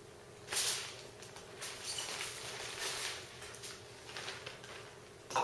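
Plastic zip-top bag crinkling and rustling as a large spice-rubbed beef brisket is lifted and slid into it. There is a sharp rustle about half a second in, then scattered crinkling for a few seconds.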